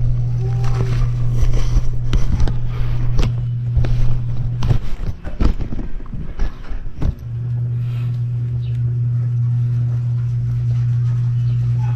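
A steady low hum that cuts out for about two seconds in the middle, with a run of small clicks and knocks from hands and an Allen key working on a bicycle rear derailleur.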